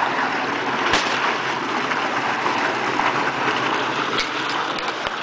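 Water from a solar-powered tube well gushing out of a pipe and splashing onto the muddy ground in a steady rush, with a sharp knock about a second in.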